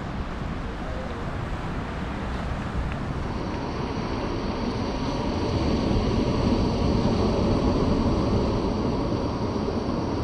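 Wind rumbling on the microphone over the wash of sea waves breaking and running up the sand. It gets louder in the second half.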